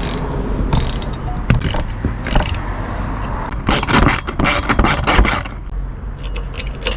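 Hand ratchet clicking in quick runs while tightening the bolts of a Toyota 4Runner's underbody panel, busiest around the middle.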